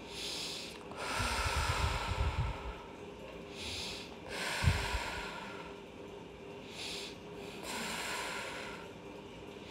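A woman breathing deeply and audibly through her nose, about three slow breath cycles, each a short breath followed by a longer one. A soft low thump about halfway through.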